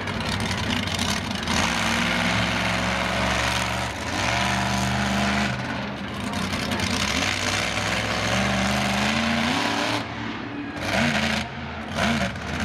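Monster truck engine running hard under throttle, its pitch dipping and recovering as the throttle is worked, then rising in a long rev and ending in two quick sharp throttle blips.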